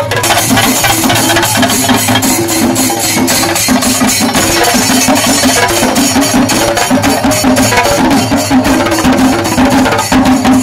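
Chenda melam: chenda drums beaten with sticks and ilathalam hand cymbals clashing together in rapid, even, loud strokes.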